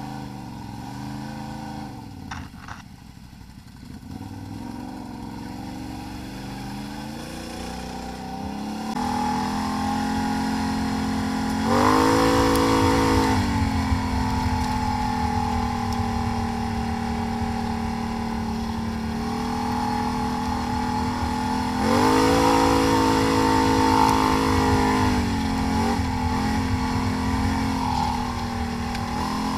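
ATV engine running at low, wavering revs, picking up about eight seconds in, then two hard bursts of revs, one about twelve seconds in and one about twenty-two seconds in, each held a couple of seconds before easing back.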